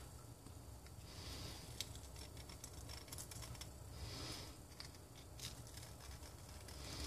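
Faint handling noise: scattered small clicks and scrapes as removed engine valves are picked up and turned over, with a few short soft breaths.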